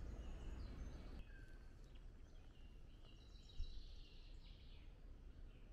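Woodland birds chirping and trilling faintly over a steady low rumble, with one soft low bump about three and a half seconds in.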